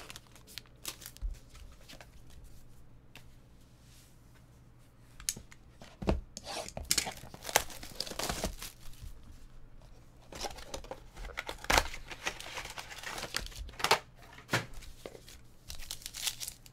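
Trading card pack wrappers being torn open and crinkled, with rustling and clicks as the cards are handled. It is sparse for the first few seconds and busier from about five seconds in.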